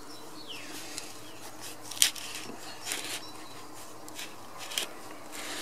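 Lid of a hot tin can being worked loose by gloved hands: one sharp metallic click about two seconds in and a few lighter clicks later. Under it, the faint steady buzz of a flying insect.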